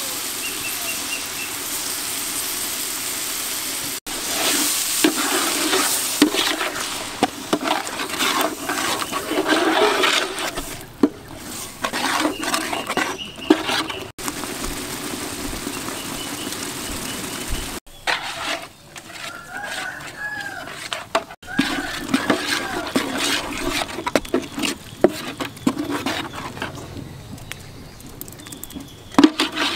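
Liquid pouring in a steady stream into a large steel cooking pot, then a metal ladle stirring the thick curry, scraping and clattering against the pot in quick irregular strokes.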